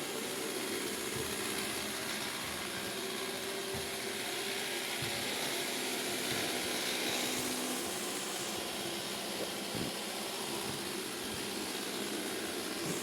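Roomba robot vacuum running with a steady noise and a few faint knocks. The owner finds the sound completely different from normal after two months of disuse, even with the filter cleaned, and does not know why.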